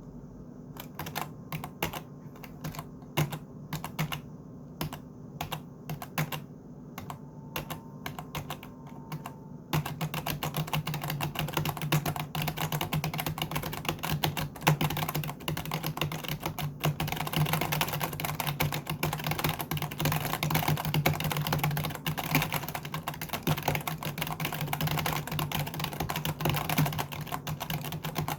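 Computer keyboard typing: scattered single keystrokes for about the first ten seconds, then fast, continuous typing that is louder.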